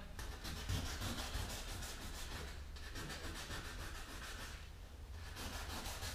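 Hand scuffing of the painted plastic front bumper cover with an abrasive: a steady scratchy rubbing with two brief lulls. The paint is being keyed in prep for respraying.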